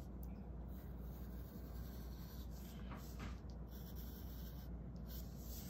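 Pencil scratching on sketch-pad paper in short, faint strokes as a drawing is sketched, over a low steady hum.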